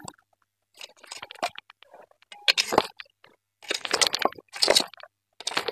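Bricks and broken stone clattering and scraping in irregular bursts as a rubble pile is pulled apart with a snake hook.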